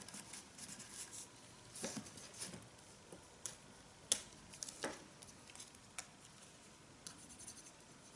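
Faint crafting handling sounds: small paper pieces rustling and scattered light taps and clicks as a bell cut-out and a liquid glue bottle are handled on the work mat.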